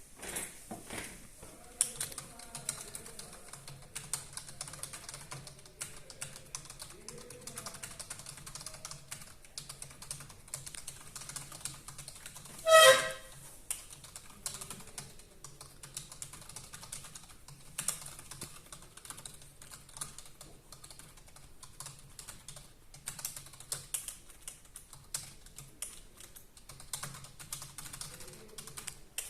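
Fast, continuous typing on a computer keyboard, a rapid irregular patter of key clicks during a speed typing test. About halfway through, a brief loud pitched tone sounds once over the typing.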